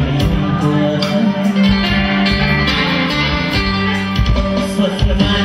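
Instrumental passage of a Vietnamese New Year song's backing music, led by plucked guitar over a steady beat, with no singing.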